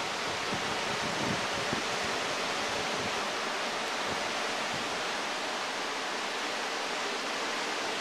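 Steady hiss of wind and breaking ocean surf on a stormy coast, an even rushing noise that holds constant throughout.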